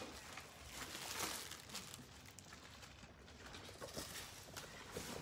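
Faint rustling and soft knocks of magazines and plastic bags being handled and stacked, in irregular small movements.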